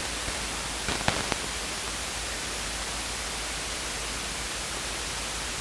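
Steady static hiss on the cockpit radio and headset audio between transmissions, with a few faint clicks about a second in.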